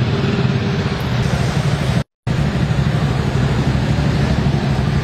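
Steady rumble and noisy wash of street traffic moving through a flooded road. It breaks off for a moment about two seconds in, then carries on.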